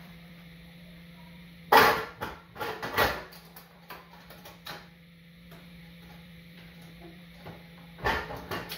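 Metal clanks and knocks as motorcycle exhaust header pipes are handled and fitted into place at the engine: a sharp knock about two seconds in, a short cluster around three seconds, and another knock near the end.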